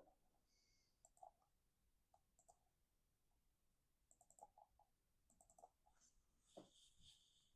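Near silence with faint, scattered small clicks in short clusters of two to four, from cut card stock being handled during assembly.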